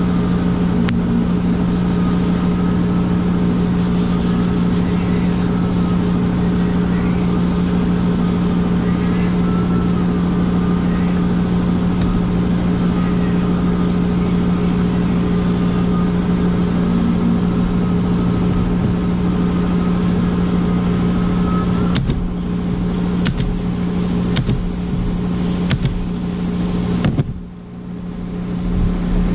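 Woodworking router running steadily with a constant motor hum and whine; the sound wavers about three-quarters of the way through and drops away briefly near the end before picking up again.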